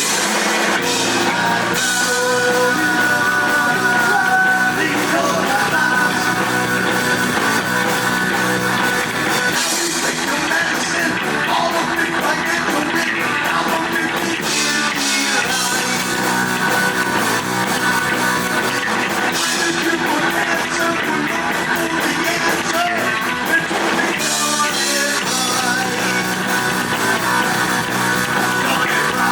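Heavy metal band playing live: electric guitar, bass and drum kit, with a singer's voice. The low end drops out briefly twice, around halfway and about two thirds in.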